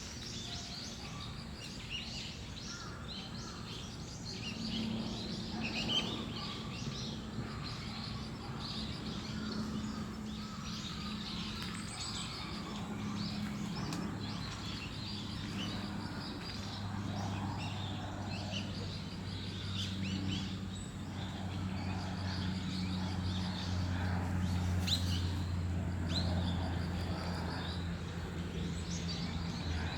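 Many small birds chirping and calling in short, overlapping notes, over a steady low hum that grows a little louder about halfway through.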